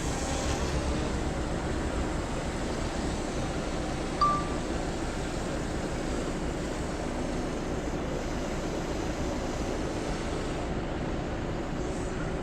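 Steady wind noise buffeting the microphone, with one short electronic beep about four seconds in.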